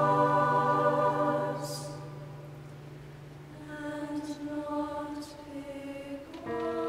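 Mixed youth choir singing a slow piece: a held chord fades away, there is a brief hush broken by soft sibilant consonants, and the choir comes back in softly. Piano notes enter near the end.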